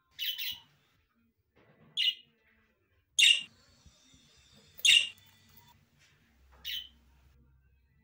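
Budgerigars calling: five short chirping calls a second or two apart, the first a quick double, the middle two the loudest.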